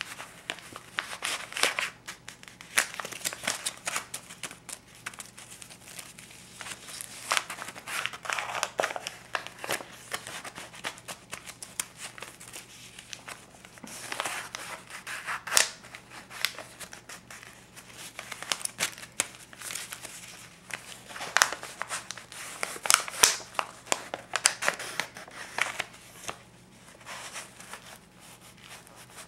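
A stack of US $50 and $20 paper bills being handled and counted by hand: irregular crinkling, rubbing and flicking of the notes, loudest about halfway through and again a little later, quieter near the end.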